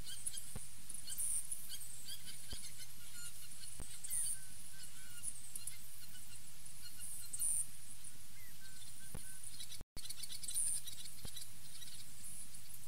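Wild birds calling around a pond: many short high chirps and brief whistled notes over a low steady hum, with a few faint clicks. The sound cuts out for a moment about ten seconds in.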